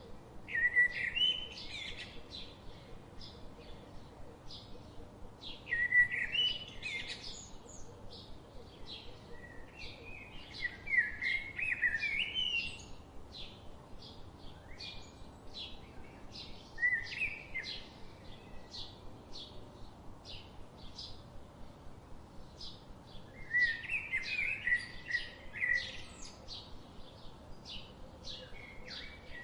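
Budgerigars chirping and warbling: a steady run of short, rapidly repeated chirps, broken every few seconds by louder bursts of chattering warble.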